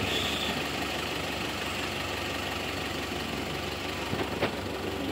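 Bus engine running steadily with an even hum, and one faint click about four seconds in.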